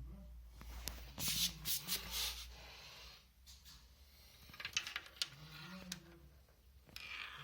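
Clicks and short rustles of objects being handled, in two clusters about a second in and near five seconds, over a steady low hum.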